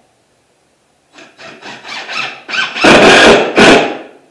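Cordless driver running a screw into an OSB wall panel. Starting about a second in, there are several short trigger pulses, then two longer, louder runs as the screw drives home.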